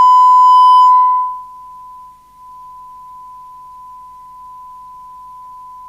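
A steady 1 kHz test tone: the signal generator's modulation recovered by the Maxcom Apollo 16E FM CB receiver while it is peaked for maximum recovered audio. It starts loud and harsh, drops to a much lower, clean level after about a second and a half, and dips briefly about two seconds in.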